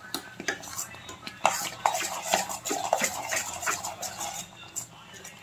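A metal spoon scraping and clinking against a metal kadhai in irregular strokes while stirring thick ground masala paste that is frying in oil.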